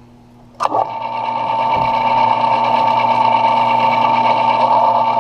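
Metal lathe switched on with a click about half a second in, its motor spinning up over about a second and then running steadily with a high-pitched hum.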